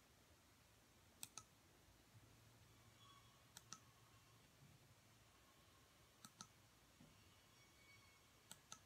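Near silence: room tone broken by a few faint, sharp clicks, mostly in close pairs, every two to three seconds.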